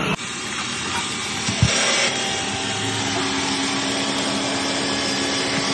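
Steady noise of a metal-cutting tool working on the steel underside of a truck body, with a single knock about one and a half seconds in.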